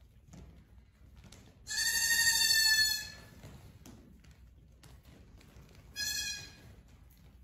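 Goat kids bleating: one long, high, wavering bleat lasting just over a second, then a shorter, quieter bleat near the end, with faint hoof taps on a concrete floor between them.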